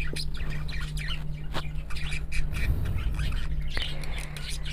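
Birds calling in the background over a steady low hum, with light soft taps of hands pressing dough on a wooden board.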